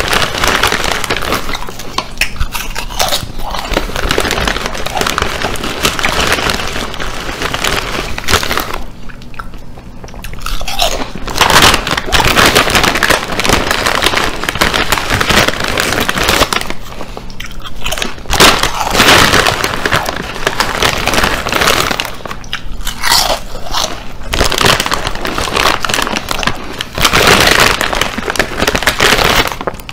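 Loud, close-up crunching and chewing of crunchy chips, bite after bite, with short lulls between mouthfuls.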